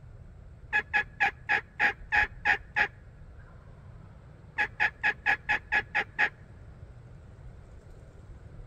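Two runs of hen yelps on a turkey call, eight sharp, evenly spaced notes in each, the second run quicker than the first: calling to a tom.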